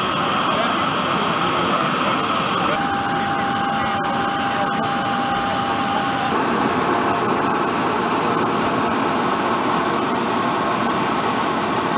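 Steady engine noise on an airport apron, with faint voices under it. The sound changes abruptly about 3 seconds in and again about 6 seconds in, and a single steady tone holds between those two changes.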